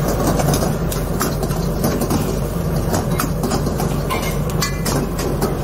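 A long steel ladle knocks and scrapes against a steel wok as spices and aromatics are stir-fried. The clanks come irregularly over the steady low roar of a commercial kitchen.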